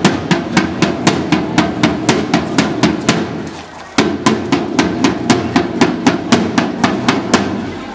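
A side drum beaten in a steady marching rhythm of about four strokes a second, with a short break and a loud accented stroke about four seconds in.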